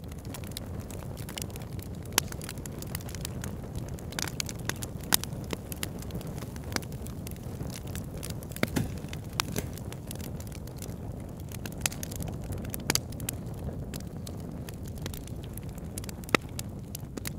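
Wood fire in a fireplace crackling: irregular sharp pops and snaps over a steady low rumble, with a few louder pops every few seconds.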